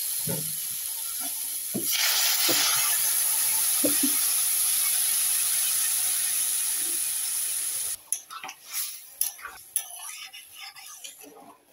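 Spiced potatoes sizzling in hot oil in a kadai, the sizzle growing louder about two seconds in as hot water is poured into the pan and hissing steadily on. It stops abruptly near the end, leaving a metal ladle scraping and clinking against the pan as the curry is stirred.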